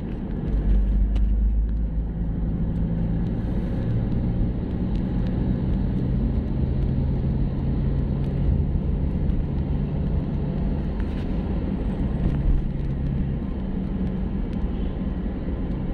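Toyota Innova campervan driving, heard from inside the cabin: a steady rumble of engine and tyres on the road, with a low engine hum holding level.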